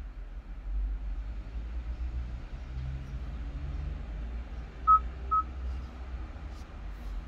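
Two short touch-confirmation beeps from a Kia Stinger GT's infotainment touchscreen as a finger taps its on-screen buttons, about five seconds in and half a second apart. A low steady rumble fills the car's cabin underneath.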